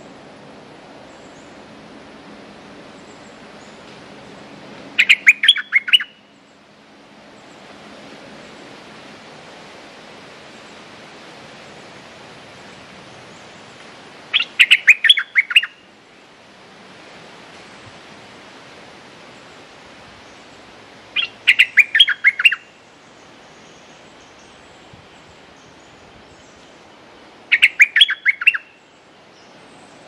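Stripe-throated bulbul singing four short phrases of quick, bright notes several seconds apart, the bird's lure call, over a steady background hiss.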